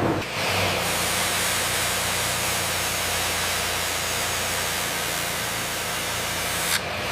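Steady loud hiss with a faint low hum underneath, cutting in abruptly near the start and cutting off abruptly near the end.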